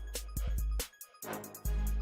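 Background music with a steady beat and deep bass; the bass drops out briefly about a second in, then comes back.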